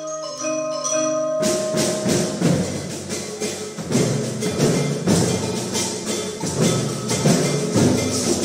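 Percussion ensemble playing: mallet keyboards hold sustained pitched notes, then about a second and a half in the whole group comes in with drums and other percussion in a dense, driving rhythm.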